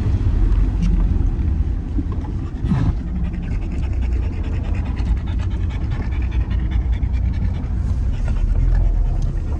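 A dog panting inside a moving car, over the steady low rumble of the engine and road.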